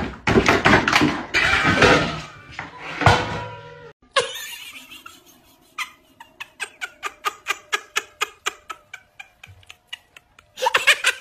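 Two cats scuffling, with loud hissing and cries, for about four seconds. After an abrupt cut, an even run of short sharp clicks follows at about three to four a second.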